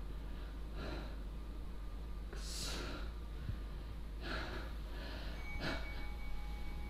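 A person breathing and sniffing, several short noisy breaths a second or so apart, over a low steady hum. About five seconds in, a faint, steady bell tone starts and keeps ringing.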